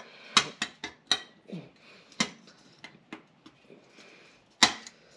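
Sharp metal clinks and taps as a VW Beetle's oil strainer cover plate and gaskets are pushed up onto the engine's sump studs: a handful of short clicks, the loudest about a third of a second in and near the end.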